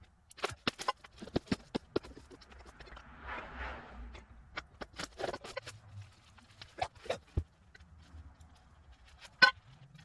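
A series of irregular clicks and knocks, with one louder knock about nine seconds in.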